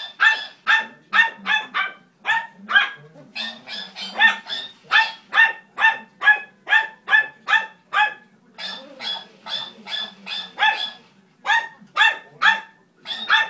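Small dog barking at a hamster toy: a long run of short, sharp barks, about two a second, with a few brief pauses.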